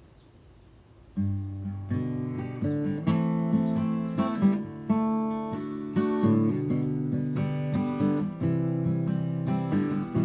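Acoustic guitar strumming chords, starting after about a second of quiet.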